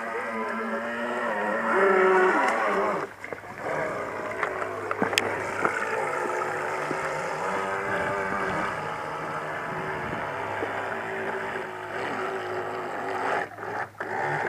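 Electric motors of a Techtoys V24 RC powerboat whining as it runs across the water, the pitch shifting with the throttle. The whine drops briefly about three seconds in and cuts back near the end.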